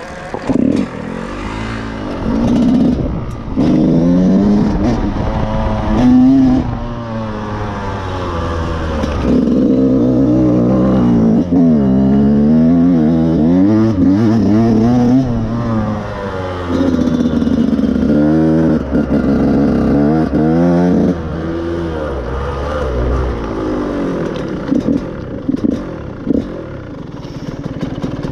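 Dirt bike engine revving up and down again and again under changing throttle, its pitch climbing and falling repeatedly. It drops to a quieter, rougher sound about 23 seconds in.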